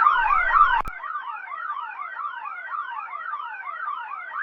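Fire alarm sounding in rapid rising whoops, cut off just under a second in and replaced by a quieter fire engine siren sweeping up and down in pitch.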